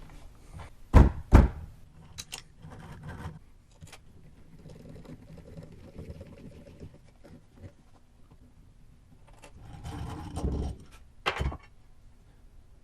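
Wooden pieces being handled on a workbench: two quick sharp knocks about a second in, softer shuffling and scraping, then more handling noise and another knock near the end.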